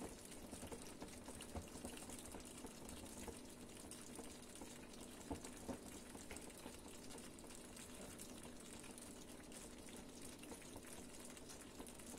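Faint, steady simmering of a chicken tagine cooking in an open clay tagine, with a few soft clicks.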